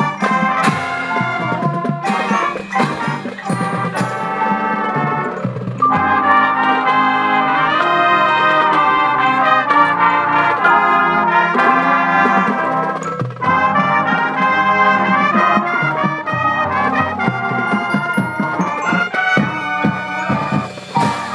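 Marching band brass section and front-ensemble percussion playing loudly: a run of sharp accented hits for the first six seconds or so, then held full brass chords from about six seconds in.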